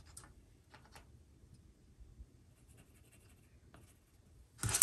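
A few faint clicks and handling noises from a tape measure held against the wall, then, near the end, a pencil scratching a mark onto the painted wall.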